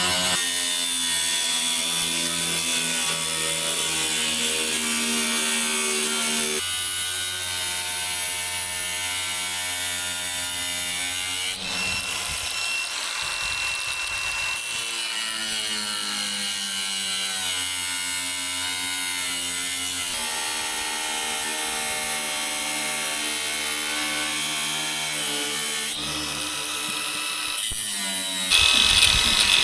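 Power tool cutting sheet steel, its motor running steadily and its pitch shifting as it bites, in several stretches that change abruptly. It is louder near the end.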